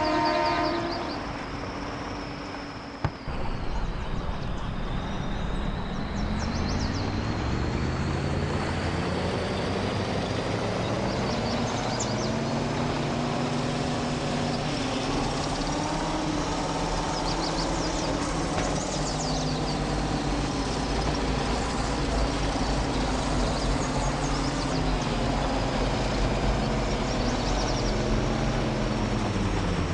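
A horn sounds briefly, then stops about a second in. From about five seconds a heavy truck engine runs under load, its pitch climbing and falling several times as it pulls through the gears.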